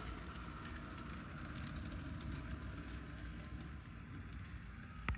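HO scale model train, an Atlas GP-7 diesel locomotive pulling boxcars and a caboose, running steadily along the track: an even rumble and clatter of small wheels on the rails, with a faint motor whine that fades out over the first couple of seconds.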